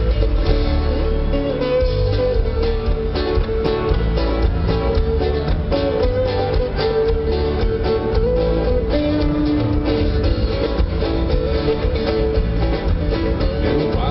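Live sertanejo band playing an instrumental passage over a concert PA, a viola caipira picking the melody over a heavy, steady bass and beat.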